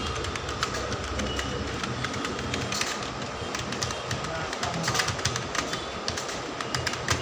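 Typing on a computer keyboard during a number typing test: a fast, irregular run of key clicks over a steady low background rumble.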